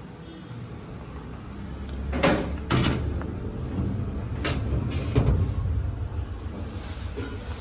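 Metal baking trays being handled and slid into a tray rack: a few sharp metallic clanks and scrapes, about two, three, four and a half and five seconds in, over a steady low hum.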